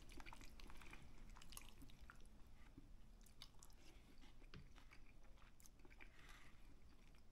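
Faint chewing of a mouthful of spaghetti, with scattered small clicks from the mouth.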